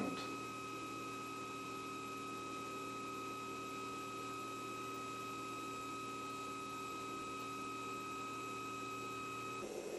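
Stepper motors of a CNC hot-wire foam cutter driving the wire carriages slowly upward. They make a steady whine of a few held tones that stops about nine and a half seconds in.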